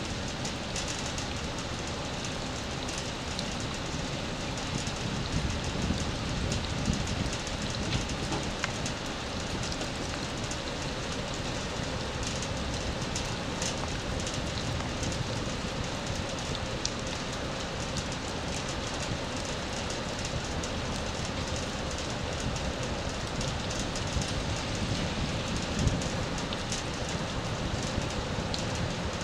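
Steady hiss of storm water, rain and runoff in a flooded yard, with scattered faint ticks of drops.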